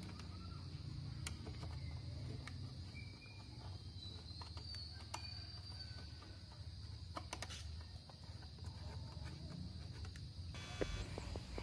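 Faint scattered clicks of a small metal screw being turned by hand into a motorcycle's plastic fairing, over a low steady hum and a steady thin high-pitched tone.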